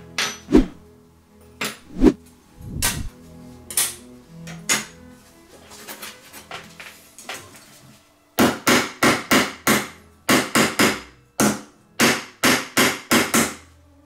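A small hammer striking thin brass knife-handle parts on the anvil face of a small bench vise to straighten them, in quick runs of about four sharp blows a second through the second half. Before that, scattered single knocks and clinks as loose metal knife parts are handled on a wooden workbench.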